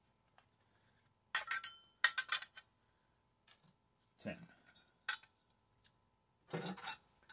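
Loose metal parts from a dismantled microwave clinking and clanking as they are handled and dropped onto a scrap pile: several short bursts of sharp clinks with quiet gaps between them.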